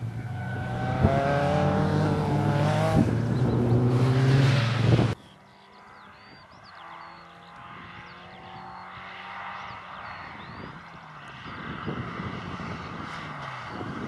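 Rally car engine revving hard, its pitch climbing in steps as it accelerates. About five seconds in it cuts off abruptly to a much quieter engine sound with faint high chirps over it.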